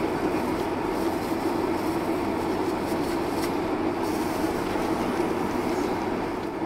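Steady cabin noise of a Boeing 767-300 taxiing, heard from inside the cabin: jet engines at taxi power with a low hum and the rumble of the wheels rolling over the apron.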